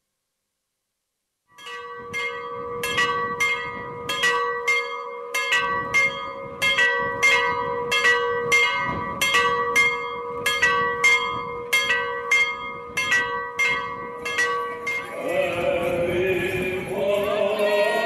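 Church bells struck in quick, even succession, about two strikes a second over a lingering ring, starting after a moment of silence; they are rung to call people to the square. Near the end the strikes stop and the voices of a gathered crowd take over.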